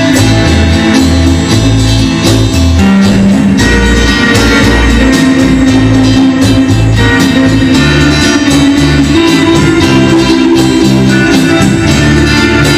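A rock and roll record playing, with a bass line stepping from note to note under a steady beat.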